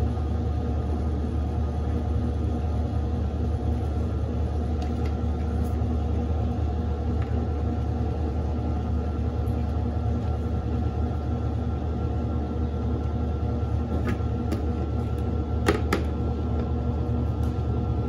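Panasonic NA-F140B6 top-load washing machine on its spin cycle: a steady motor hum and drum rumble. A few light clicks or knocks come about two-thirds of the way through.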